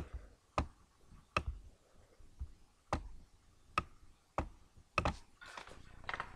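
Computer mouse clicking, about eight sharp clicks at uneven intervals, with a soft rustle of movement near the end.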